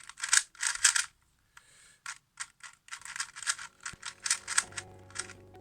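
Plastic 2x2x2 speed cube being turned fast, giving rapid clicking and clacking in quick bursts: a couple of short flurries at first, then a dense run of turns.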